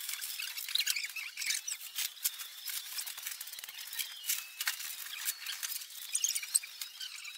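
Clear plastic wrapping crinkling and crackling in irregular bursts as it is pulled off by hand.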